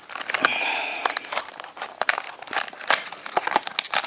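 Trading card pack wrapper being crinkled and torn open: a run of sharp crackles, with a longer tearing rasp about half a second in.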